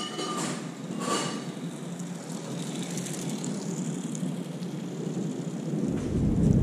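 Steady rain falling on a wet street, with two brief sharp noises about a second apart near the start. Near the end, a deep rumble of thunder comes in and builds.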